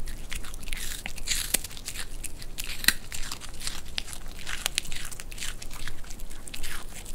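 White Pomeranian crunching and chewing a piece of carrot: a quick, irregular run of crisp crunches.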